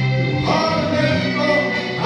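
Music with a man singing into a handheld microphone, long held notes over a steady bass accompaniment.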